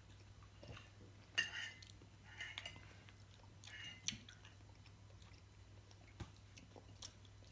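Faint chewing of a mouthful of rice and stew, with a few soft mouth sounds over a steady low hum. One small sharp click comes about six seconds in.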